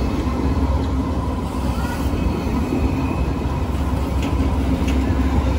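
Alstom Citadis X05 tram passing close by along the platform: a steady low rumble with a steady hum over it.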